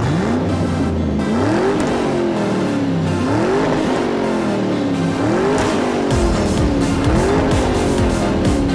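A car engine revving over and over, its pitch climbing and dropping again every second or so, with music playing underneath.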